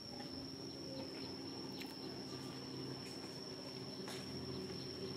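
Steady high-pitched insect trill running unbroken, with a low steady hum that comes in at the start and a couple of faint clicks.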